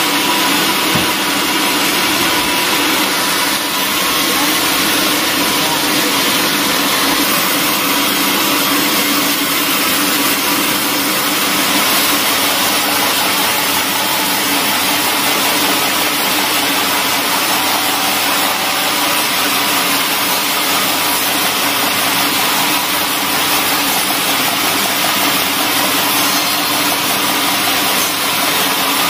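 Large bandsaw mill running steadily, its blade ripping lengthwise through a timber plank with a loud, even, continuous machine noise.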